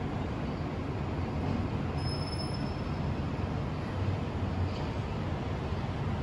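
Steady low rumble of distant city traffic heard from a high-rise, with a brief faint high tone about two seconds in.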